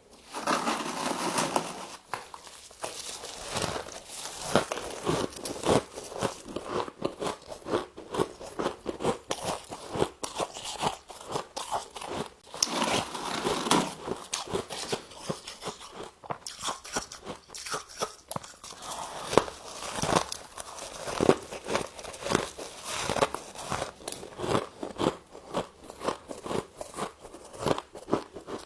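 Close-up biting and chewing of freezer frost ice: a fast, irregular run of crunches.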